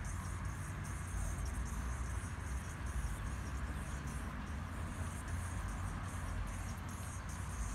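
Steady outdoor background noise: a low rumble with a faint high hiss.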